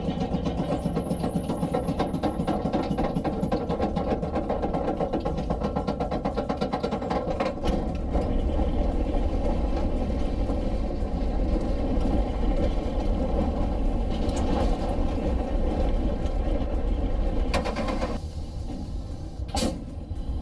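Roller coaster train running along its track with a steady rumble. A faint high whine rises over the first few seconds, the rumble gets heavier about eight seconds in, and a sharp clack comes near the end.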